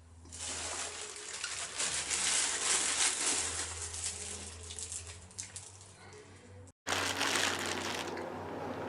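Rustling and crinkling noise of food and packaging being handled, loudest a couple of seconds in and fading, broken by a sudden cut to silence near the two-thirds mark before it resumes more quietly.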